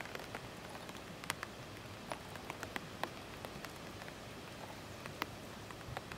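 Outdoor ambience: a steady hiss with many scattered, irregular sharp ticks and clicks, a few of them louder.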